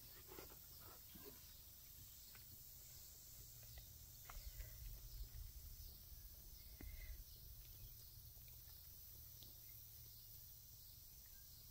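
Near silence: faint outdoor ambience with a soft low rumble that swells for a few seconds in the middle, and a few faint clicks in the first few seconds.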